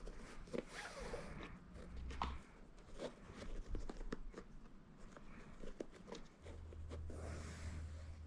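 Shoelaces being pulled through the eyelets of a Puma MB.01 basketball sneaker during a lace swap: faint scattered clicks and taps as the shoe is handled, with two longer swishes of lace drawn through, about a second in and near the end.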